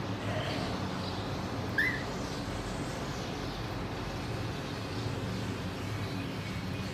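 A pet cockatiel gives one short, sharp chirp about two seconds in, with a few faint chirps just before it, over a steady low background hum.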